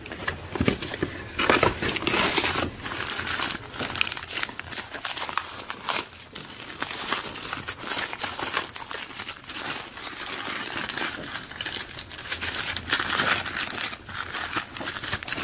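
Packaging being handled by hand: a plastic or paper wrapper crinkling and rustling irregularly, with small knocks against a cardboard box as accessories are unwrapped.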